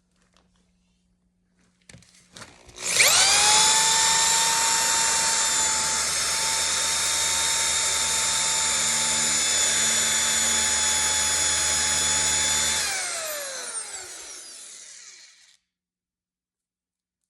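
A few clicks, then an electric power tool's motor spins up with a high whine about three seconds in. It runs at a steady speed for about ten seconds, then winds down, its pitch falling as it fades over the next two to three seconds.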